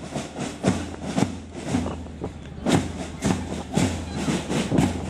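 Boots of a marching marine column striking paving stones in unison, about two steps a second in an even rhythm.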